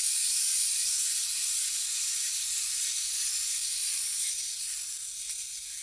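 A steady, even hiss lasting about six seconds, easing off a little near the end before it stops.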